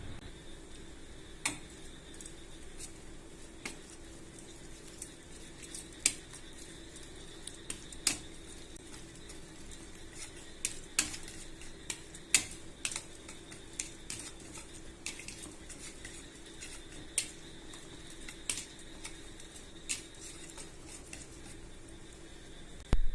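A metal spoon clinking against a dish while mixing, in irregular sharp clicks a second or so apart, over a faint steady hum.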